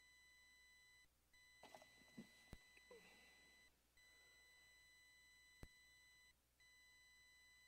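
Near silence: a faint, steady, high-pitched electronic whine in the recording, cutting out briefly about every two and a half seconds. A few faint clicks and soft knocks sound over it.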